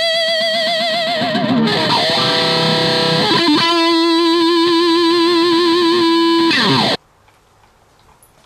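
Distorted electric guitar playing long, wavering held notes that slide down to a lower held note, cutting off suddenly about seven seconds in, leaving only faint room sounds.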